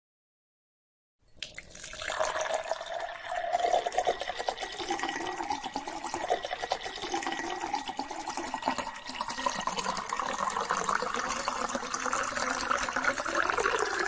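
Water pouring into a drinking glass and filling it, starting about a second in.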